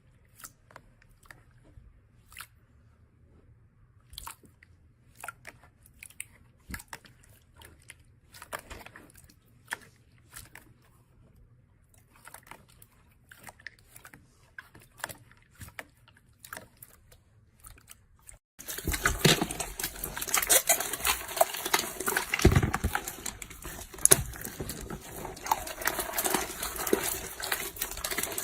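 Slime being handled, making scattered faint sticky clicks and crackles. About two-thirds in it switches suddenly to much louder, dense crackling and popping.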